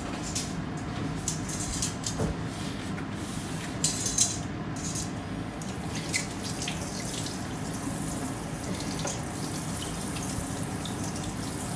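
Gas stove burner running under an empty frying pan as it heats: a steady hiss with scattered crackles and a couple of sharper clicks about four seconds in.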